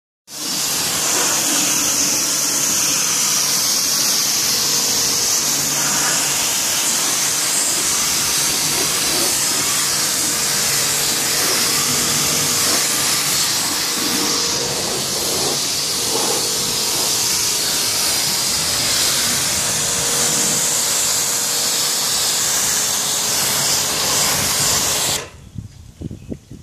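Water spraying onto a car's painted body panels, a loud steady hiss that cuts off suddenly about a second before the end, leaving quieter scattered sounds.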